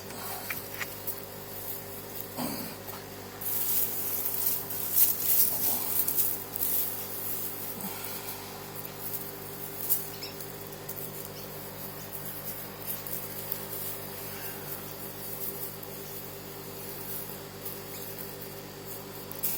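Garden fork digging into soil and levering up a potato plant: scraping and rustling of soil and foliage, busiest for a few seconds about four seconds in, with scattered small clicks. A steady low hum runs underneath.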